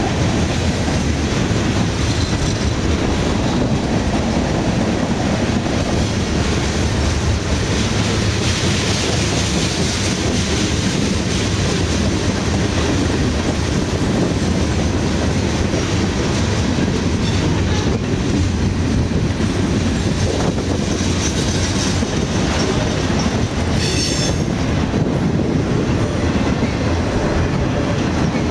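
Freight cars of a long mixed freight train rolling past at speed: steady, loud noise of steel wheels on rail and the cars rattling, with a brief high-pitched wheel squeal near the end.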